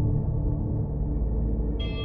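Ambient background music: a deep, sustained drone with held tones above it, and a brighter, higher ringing layer coming in near the end.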